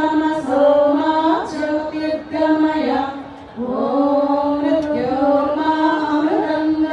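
A single voice singing a slow, melodic chant in long held notes that glide up and down, with a brief break between phrases about three seconds in.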